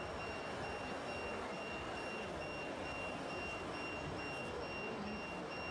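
Steady mechanical running noise from 1:14-scale radio-controlled construction machines at work. Over it, a high electronic beep pulses evenly at about four times a second.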